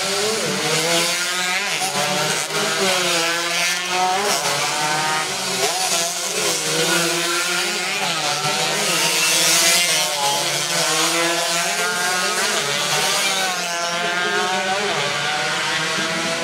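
Several 125cc two-stroke underbone race motorcycles at full throttle, their buzzing engines overlapping and rising and falling in pitch as they pass one after another.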